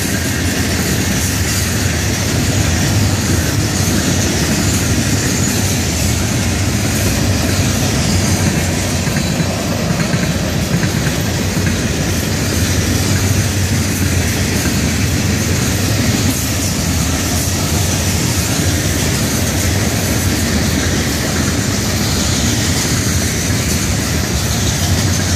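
Florida East Coast Railway freight train rolling past at speed: a steady, loud rumble of loaded hopper cars' steel wheels running on the rails.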